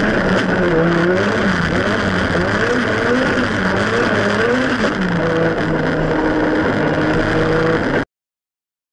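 Ford Sierra Cosworth's turbocharged Cosworth YB four-cylinder engine, heard from inside the cabin. Its revs rise and fall several times as the driver works the gears, then hold steady for a few seconds before the sound cuts off suddenly near the end.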